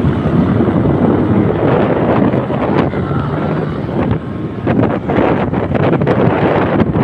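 A machine running loudly and steadily, with wind buffeting the microphone and scattered knocks, more of them in the second half.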